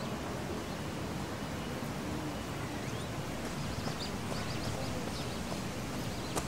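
Steady outdoor park ambience, an even hiss with a few faint bird chirps.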